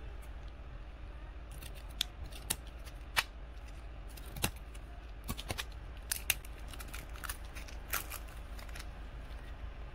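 Scissors snipping through a stiff clear plastic blister pack: a string of sharp, irregular snips and plastic clicks over a low steady hum.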